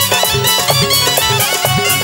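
Instrumental interlude from a live stage band: a steady drum beat with low strokes that bend in pitch, under a fast, busy melodic line from a keyboard or bowed-string-like lead.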